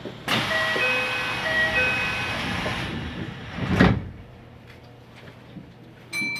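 A two-note electronic chime alternating twice, high-low-high-low, over a loud hiss that starts and stops abruptly, followed about four seconds in by a single heavy thump. The sounds are heard from a moving train's cab.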